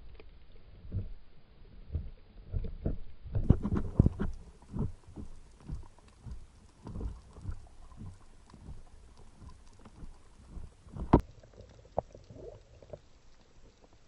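Underwater sound picked up by the camera in its housing: irregular low knocks and thumps with a faint hiss between them, and one sharp click about eleven seconds in.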